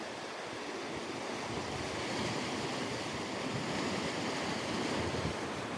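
Sea surf: a steady wash of waves breaking, which swells a little in the middle.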